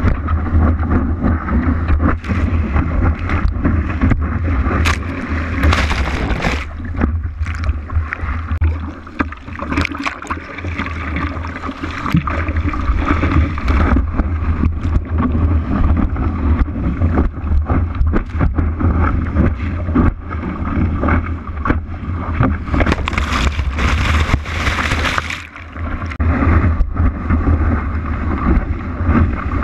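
Rushing water and spray from riding a wave, picked up by an action camera on the surfboard's nose. A heavy, steady wind rumble sits on the microphone, and splashes of spray hit the housing again and again. A louder surge of water comes about three-quarters of the way through.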